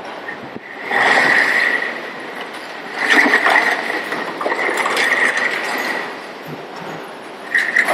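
A crate of small hollow moulded plastic parts being tipped out onto a table, the pieces clattering and clinking against one another, in two main bursts about a second in and from about three seconds in. Injection-moulding machines run steadily underneath.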